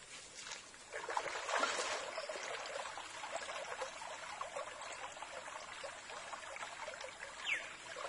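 Shallow stream water splashing and trickling as a person wades in it and works a mesh fishing net through the water. It starts about a second in, loudest just after the start, then carries on at an even level.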